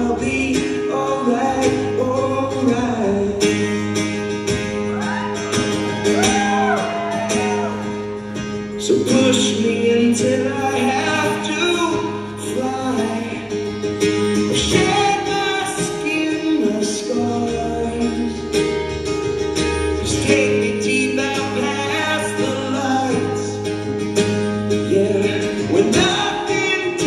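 A man singing live, his voice sliding between held notes, over a strummed acoustic guitar, with steady low held notes underneath.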